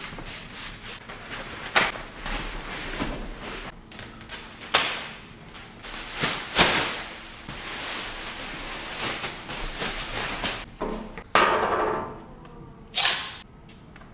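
Handling noises while a tattoo station is prepared: short squirts of a trigger spray bottle, rubbing and wiping on the padded chair, and the crinkle of a thin plastic cover being pulled over it, with a few knocks and clatters.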